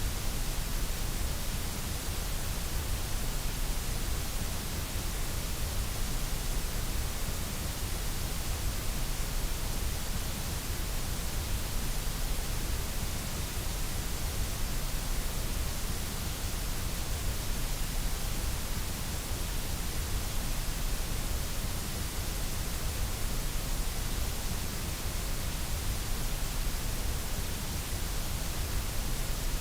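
Steady white noise: an even, unbroken hiss that never changes, with a strong low rumble underneath.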